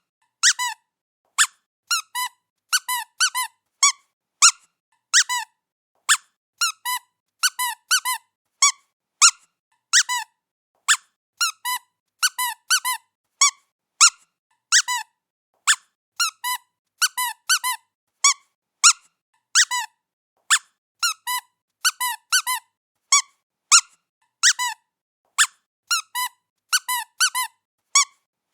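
Rubber squeaky dog toy squeaked over and over: short, high squeaks, each bending in pitch, coming singly or in quick runs of two or three at an uneven pace, with silence between.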